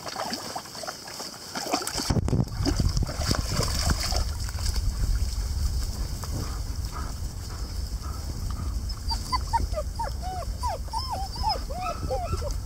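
Two-month-old puppies whimpering and yipping: a run of short, high whines that rise and fall in pitch, thickest in the second half, over a steady low rumble.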